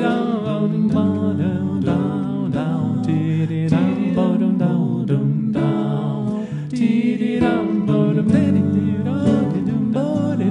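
Nylon-string electro-acoustic guitar played with a man's wordless vocal, humming or scat, gliding along over it.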